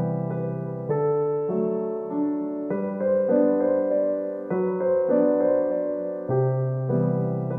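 Background piano music: slow, sustained chords changing about once a second.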